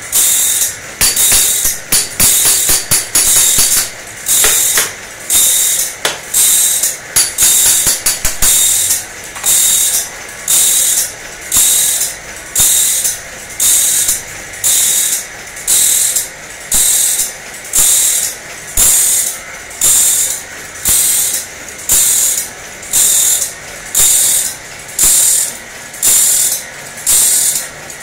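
Saw-sharpening machine working along a band saw blade tooth by tooth: a short, high grinding hiss about once a second in a steady rhythm, with scattered clicks in the first several seconds.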